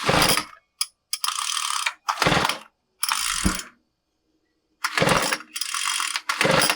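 Recoil pull-starter of a Craftsman WS215 two-stroke string trimmer being yanked over and over, about seven quick pulls, each a short whirring rasp of the cord and rewind. The engine turns over but never fires, which the mechanic finds sounds a little odd: no fuel is reaching the cylinder, so the spark plug stays dry.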